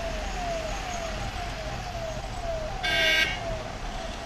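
Siren from a convoy vehicle sounding a fast repeating falling wail, about two and a half sweeps a second. A short vehicle horn blast about three seconds in is the loudest sound.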